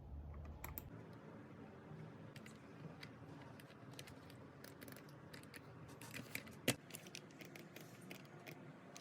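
Light, irregular clicking and tapping, with one sharper click about two-thirds of the way through.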